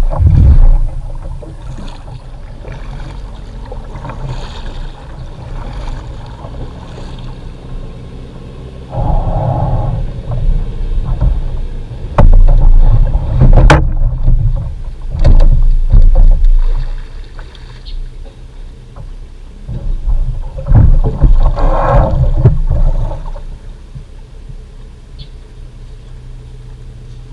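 Plastic sit-on-top fishing kayak scraping and bumping as it runs onto a sand beach and is dragged ashore: several rough bursts over a steady low rumble, with one sharp knock about halfway through.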